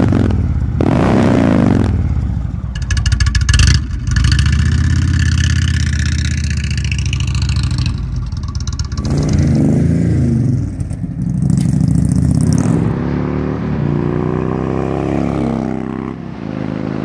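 Indian Chief Classic's 1.8-litre Thunder Stroke 111 V-twin engine running and being revved, then pulling away with the revs rising and falling as it accelerates, across several short cuts.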